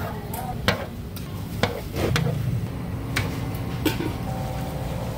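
Metal tongs clicking and clinking against a tray and wire frying basket as fried doughnuts are moved, five or so sharp clicks spread out over steady low background noise.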